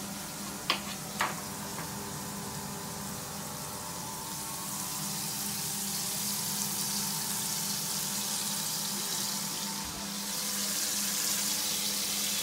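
Shrimp frying in a pan, a steady sizzle that grows louder after about five seconds. Two sharp knocks about a second in.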